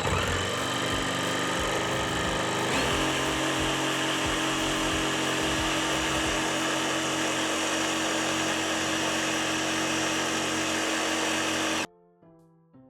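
Electric jigsaw running under full trigger while cutting along a marked line. Its pitch steps up about three seconds in, then it runs steadily and stops abruptly near the end.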